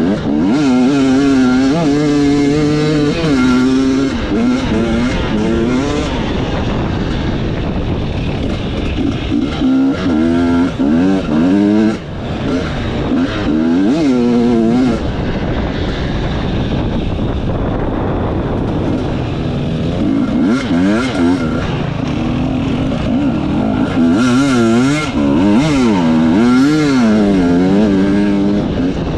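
Enduro motorcycle engine revving up and down over and over as the throttle is opened and closed, with a steady rush of noise underneath.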